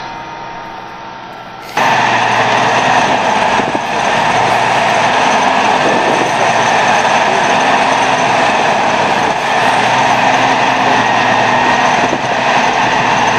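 Quieter tractor engine running for the first two seconds, then a sudden cut to a louder, steady running of a Fendt tractor engine under load as it pulls a cultivator through wet, muddy soil.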